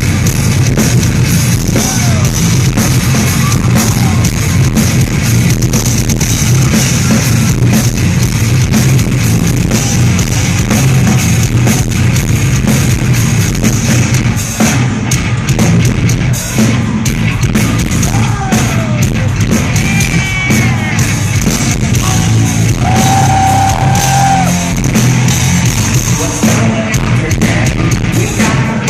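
A live heavy metal band playing loudly in an arena, with drum kit and distorted guitars, recorded on a phone so the sound is overloaded and boomy.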